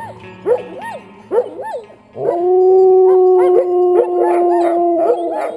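Sled dogs in harness yipping and barking in short rising-and-falling yelps; about two seconds in, one dog breaks into a long, steady howl that holds for about three seconds while the others keep yipping over it.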